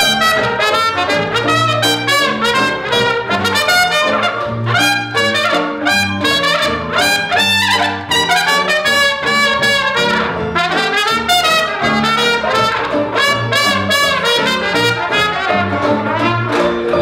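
Cornet playing a hot Dixieland jazz solo, a lively melody of short and held notes, over the band's rhythm section with a walking string bass line underneath.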